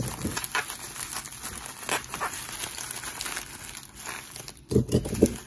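Clear plastic packing bag and bubble wrap crinkling and rustling as hands work them open, a string of irregular crackles with a few heavier handling bumps near the end.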